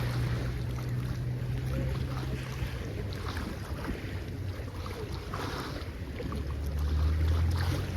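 Sea waves washing ashore at high tide, a continuous hiss of surf, over a steady low rumble that gets louder near the end.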